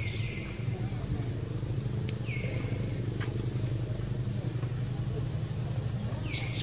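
Three short, high-pitched squeaks from a young macaque, each sliding down in pitch and then levelling off. The first comes right at the start, the second about two seconds in and the third near the end. A steady low hum runs under them.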